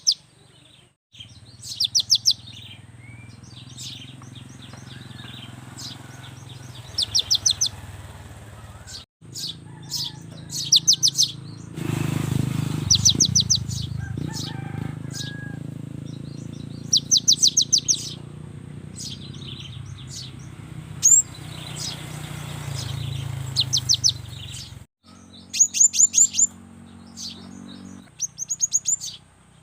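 Cinereous tit (gelatik batu) singing in short, fast trills of high, evenly repeated notes, a burst every second or two, over a low steady background hum.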